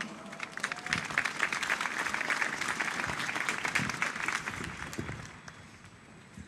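Large crowd applauding: the clapping builds up within the first second, holds steady, then dies away over the last second or two.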